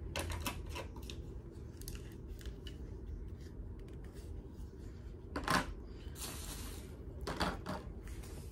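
Small plastic parts and their packaging being handled: light clicks and taps, a sharp crinkle about five and a half seconds in, a short rustle, and another crinkle near the end.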